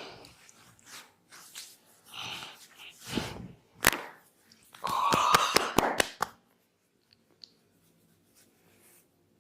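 Hand slaps and taps on the head during an Indian head massage: one sharp slap just under four seconds in, then a fast run of about six slaps over a second and a half. Softer hissing sounds come before them.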